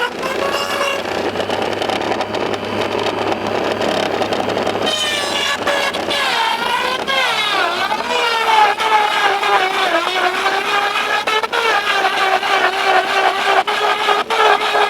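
Home-made 3D-printed styrofoam shredder running, its 12-volt DC motor and a small Dyson vacuum whining together. The whine slides up and down in pitch as styrofoam is fed in and shredded. Scattered sharp ticks come through from about eight seconds in.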